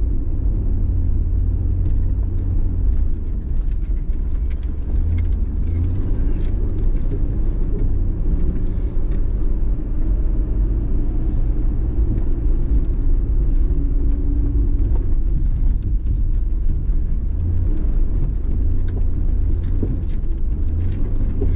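Mercury Mountaineer SUV driving, heard from inside the cabin: a steady low rumble of engine and road noise, with scattered light clicks and rattles.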